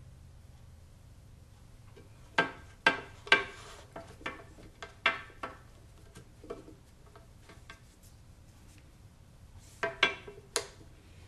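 Small cut wooden pieces clicking and knocking together as they are handled and fitted into place. There is a cluster of sharp taps a couple of seconds in, scattered lighter ones after, and a few more near the end.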